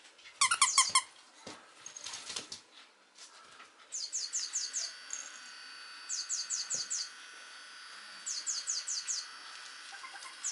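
A squeaky toy squeezed about four times in quick succession, loud and high-pitched, followed by a few soft knocks. From about four seconds in, quiet background music plays, with groups of five high chirps repeating every couple of seconds over held tones.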